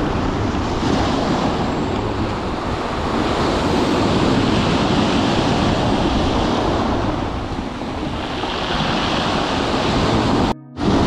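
Sea surf breaking and washing up a pebble beach, with wind noise on the microphone. The surge swells and eases and breaks off for a moment near the end.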